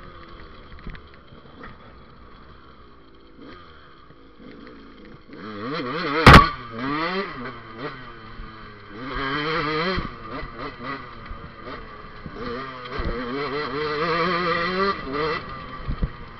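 KTM dirt bike engine running low at first, then from about five seconds in revving up and down repeatedly as the bike is ridden. A sharp knock, the loudest sound, comes about six seconds in.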